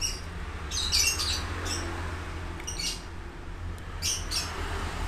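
Birds chirping in short clusters of high chirps, four bursts, over a steady low hum.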